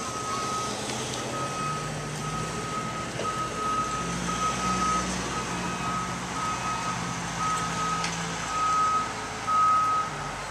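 A vehicle's reversing alarm beeping about twice a second, with the vehicle's engine running beneath it.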